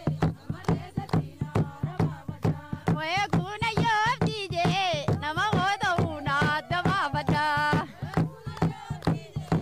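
Women singing a traditional song to steady hand clapping and a frame drum, about three beats a second. A high voice sings a wavering, ornamented line through the middle stretch.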